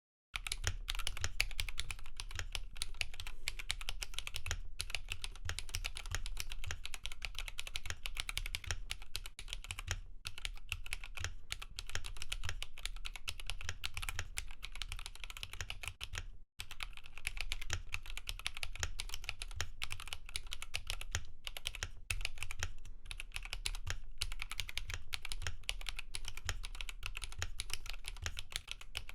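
Typing on a mechanical keyboard fitted with Bolsa Supply Zaku linear switches (63.5 g, double spring): a steady, fast run of keystrokes, with a brief break a little past halfway.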